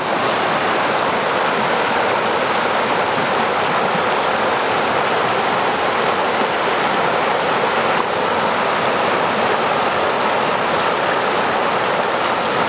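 Rocky mountain stream rushing over boulders in small cascades: a loud, steady rush of whitewater.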